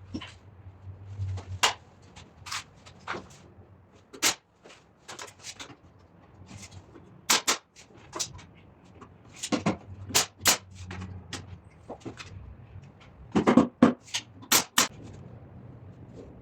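Irregular knocks and clicks of wooden pieces being handled and set against each other, some sharp and loud, coming in small clusters.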